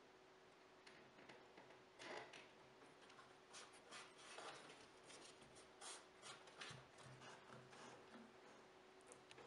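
Faint rubbing, scraping and light taps of hands pressing and sliding a thin wooden panel into place on a small wooden box, in short scattered bits, over a faint steady hum.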